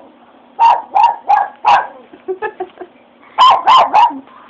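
A Japanese Chin barking in alarm at fireworks: four sharp barks about half a second apart, a few quieter, lower yelps, then three more barks in quick succession near the end.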